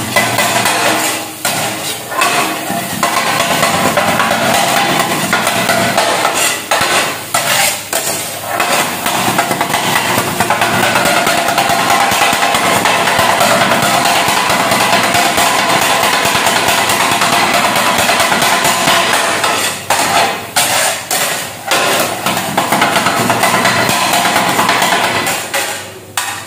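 Two flat metal kottu blades chopping roti on a flat metal griddle: a fast, steady metallic clatter of strokes. It breaks off briefly a few times and stops near the end.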